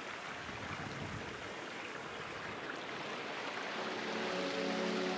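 Steady rushing outdoor noise with no clear single source, with soft sustained music fading in from about four seconds in.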